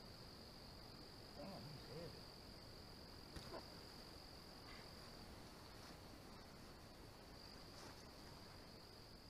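Faint, steady high trill of crickets in a night-time insect chorus, with a few faint knocks and rustles.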